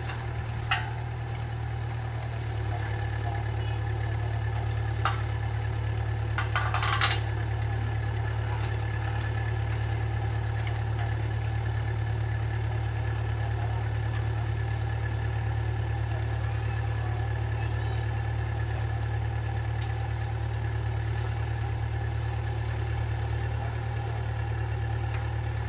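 Diesel engine of a Hitachi EX 40-2 mini excavator running steadily with a low hum, picking up slightly about two and a half seconds in as it holds a steel catenary arm up on its boom. A few sharp metal knocks come in the first seven seconds.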